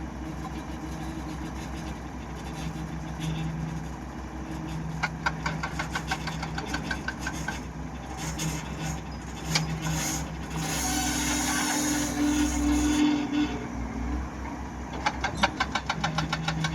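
Diesel engine of a heavy earth-moving machine running steadily, with a fast, even clatter twice and the engine growing louder partway through.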